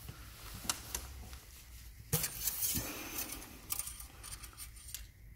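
Light clicks and clinking rattles from handling, with a dense cluster of them about two seconds in.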